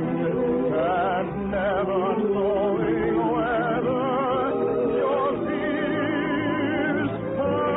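Musical interlude of singing voices holding long notes with a wide vibrato, several parts at once. The tone is dull, with no high end, as on an old radio broadcast recording.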